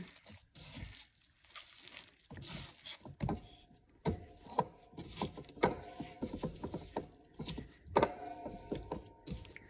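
A hand mixes and squeezes shaggy sourdough dough in a stoneware bowl, working in a little extra water to bring the dry dough together. The sticky dough gives irregular squishes and slaps, with sharp knocks against the bowl, the loudest about four, five and a half and eight seconds in.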